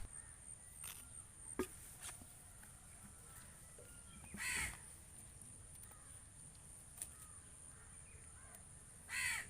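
A crow cawing twice, two short harsh calls about four and a half seconds apart, over a faint steady high-pitched whine and a few light clicks.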